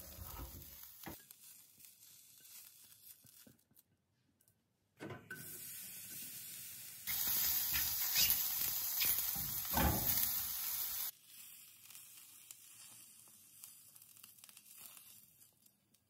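Food sizzling in a frying pan, heard in several short takes that cut in and out abruptly. There is a near-silent gap about four seconds in, and the sizzle is loudest from about seven to eleven seconds in.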